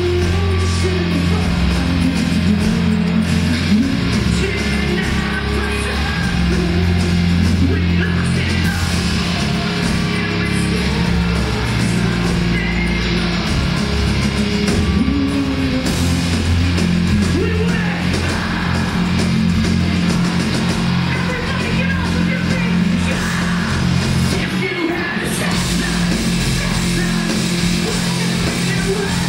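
Live rock band playing loud: distorted electric guitars, bass and drums under a singer's vocals, heard from within the crowd.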